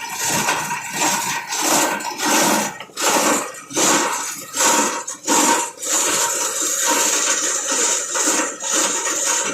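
Plastic scrap grinder running and chewing through plastic pieces: a dense crunching, rattling churn that swells and dips irregularly as the scrap is fed through the cutters.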